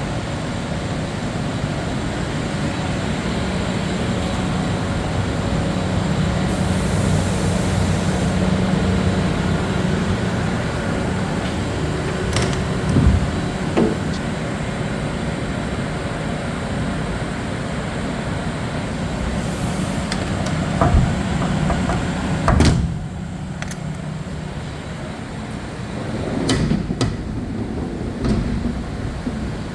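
CNC bridge mill and its auxiliary equipment running: a steady mechanical hum with a few sharp clunks and two short hisses, the whole dropping quieter about two-thirds of the way through.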